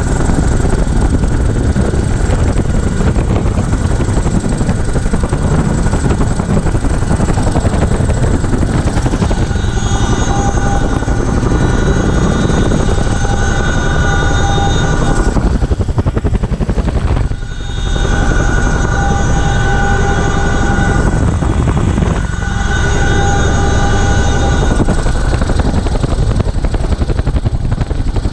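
CH-47F Chinook tandem-rotor helicopter heard from inside the cabin: loud, steady rotor and engine noise. A high whine joins about ten seconds in and drops out briefly twice.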